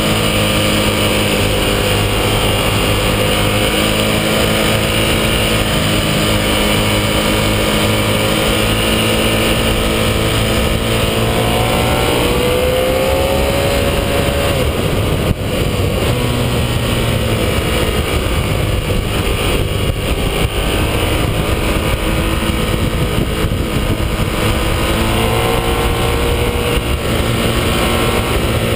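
Ducati 1198S's L-twin engine running hard under way, its pitch rising and falling with throttle and gear changes, over a constant rush of noise.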